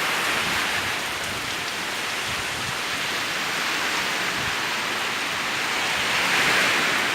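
Heavy storm rain pouring down, a steady dense hiss that swells briefly near the end.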